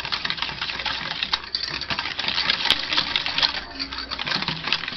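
A metal utensil beating yogurt and sugar batter in a stainless steel bowl: rapid, continuous clinking and scraping against the metal.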